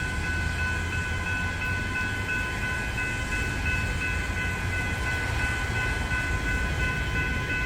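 Level crossing bells (General Signal Type 3) ringing continuously with a steady high ring, over a low rumble.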